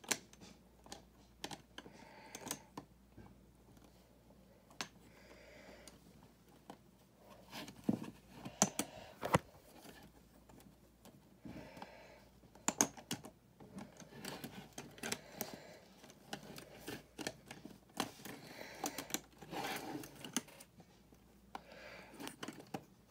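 Plastic LEGO bricks clicking and rattling as they are handled, searched through and pressed together, in irregular short clicks that cluster in a few busy spells.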